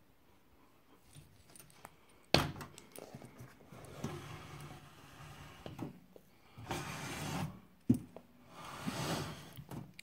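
Handling noise: a sharp knock a couple of seconds in and another just before eight seconds, with stretches of rustling and scraping between them.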